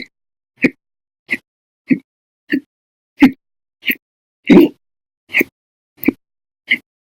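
A woman hiccuping over and over, eleven short, sharp hiccups at a steady pace of about one every two-thirds of a second, the one just past halfway the longest and loudest. It is a bout of persistent hiccups, the kind that goes on for hours.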